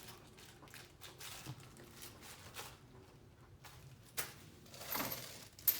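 Rummaging through a drawer of small parts and bagged hardware: faint rustling with a few sharp clicks of items being picked up and set down, the loudest click just before the end.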